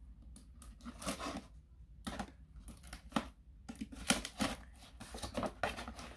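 Box cutter slicing the packing tape on a cardboard shipping box, a series of short, uneven scratchy strokes with pauses between them.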